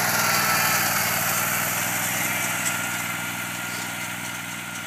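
Engine of an orange zero-turn riding mower running steadily as the mower drives away, with a thin whine above the engine hum. The sound fades gradually as it moves off.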